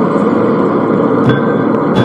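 Two-burner propane forge running with a loud, steady roar. A single metallic strike with a short ring comes past halfway.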